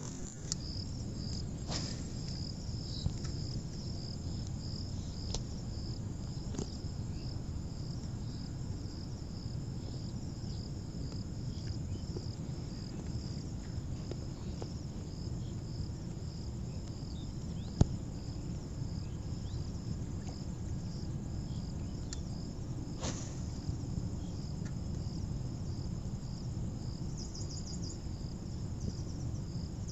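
Insects chirping steadily in a pulsing rhythm, about two pulses a second, over a low steady rumble. A single sharp click comes about eighteen seconds in.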